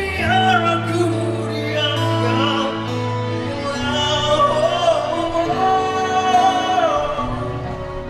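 Live band playing: a male singer sings a long, sliding melodic line over acoustic and electric guitars, bass guitar and drums.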